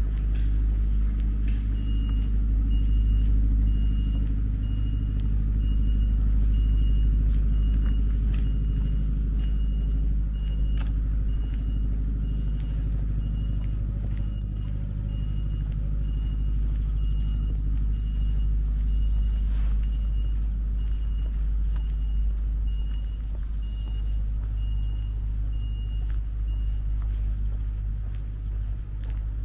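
Steady low outdoor rumble. A high electronic beep repeats about once a second through most of it and stops shortly before the end.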